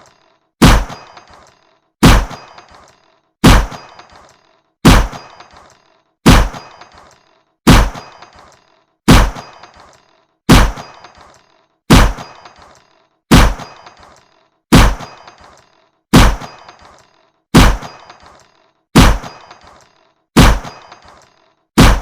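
Fairground shooting-gallery gun firing again and again, about one shot every second and a half, each a sharp crack followed by a short metallic ring.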